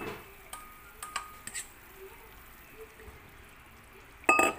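Fish pieces slid from a stainless steel bowl into a pan of simmering broth with a spatula: soft liquid squelches and a few light clicks, then one short, loud metallic clank with a brief ring near the end.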